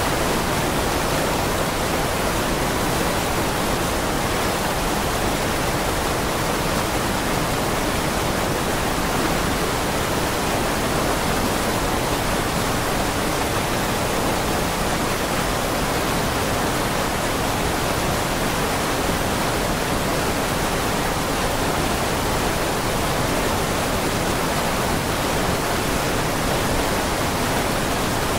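Waterfall on a mountain creek in flood, swollen by days of heavy rain: a steady, loud roaring of falling water with no let-up.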